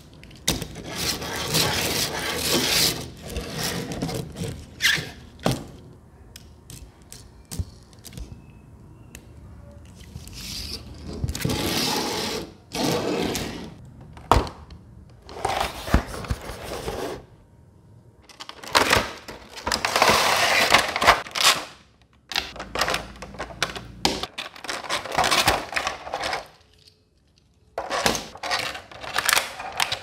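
Packaging being handled: a cardboard toy box opened and its thin plastic tray taken out, in a series of loud rustling, scraping and crinkling bursts with a few sharp knocks between them.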